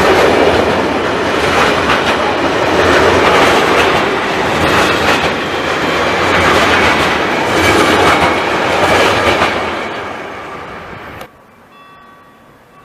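Train passing at speed, with loud rolling rumble and clickety-clack of wheels over the rails in swelling waves, fading off and then cutting off suddenly near the end.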